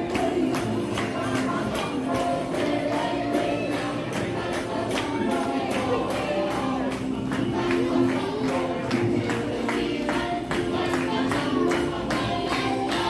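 Upbeat music played for the characters' dance parade through the dining room, with singing voices over a quick, steady percussion beat.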